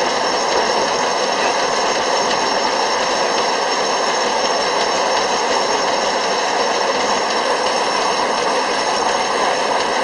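Sawmill machinery running steadily: a continuous loud mechanical din with a few steady high whining tones over it.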